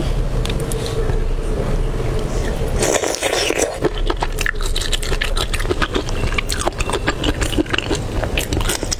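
Whole prawn, slick with chili-oil marinade, being pulled apart and peeled by hand close to the microphone. A tearing crackle of shell comes about three seconds in, then a run of small wet clicks and crackles as the shell is worked off.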